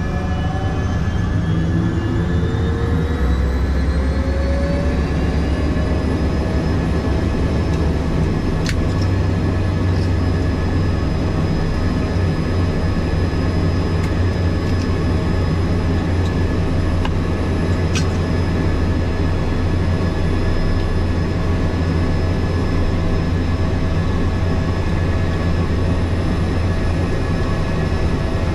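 Cessna 208B Caravan's PT6A turboprop engine and propeller running, with a deep steady drone under a turbine whine. The whine rises in pitch over the first six seconds or so, then holds steady.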